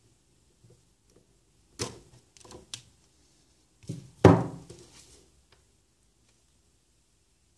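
Handling noises from a small flexible USB LED stick lamp: a few knocks and rustles of its plastic on the desk, the loudest a single thunk a little past four seconds in.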